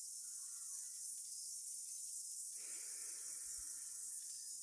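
Steady high-pitched insect chorus of crickets. A little past halfway comes a soft breath lasting about a second and a half.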